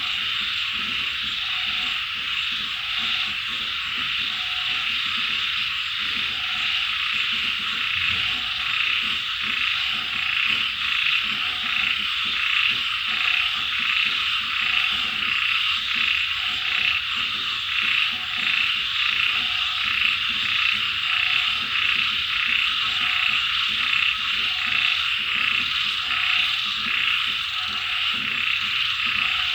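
Chorus of frogs calling in a dense, fast-pulsing trill, with one lower call repeating about once a second beneath it.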